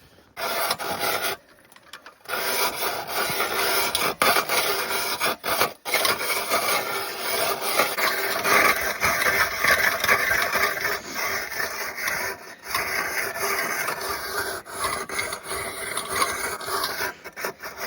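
Hand ice auger cutting through thick lake ice: a continuous rasping scrape of the blades shaving ice, with a short break about a second and a half in.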